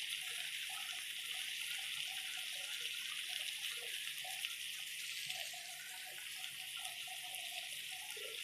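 Fish pieces frying in hot oil in a kadai, a steady sizzle.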